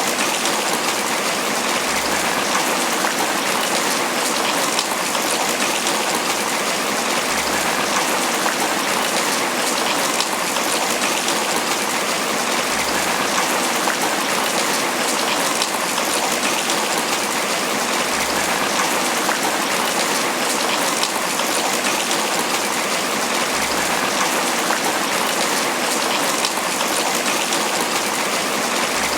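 Tropical rain falling steadily on banana leaves, a dense, even patter with no let-up.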